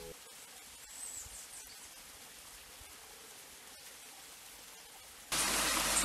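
Faint steady hiss of running water, with one short high chirp about a second in; about five seconds in, the much louder splashing rush of a tiny waterfall falling into a pool cuts in.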